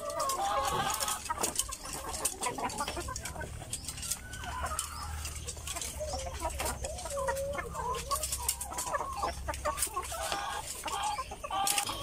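A house full of caged laying hens clucking, with many short calls overlapping throughout, and scattered light clicks.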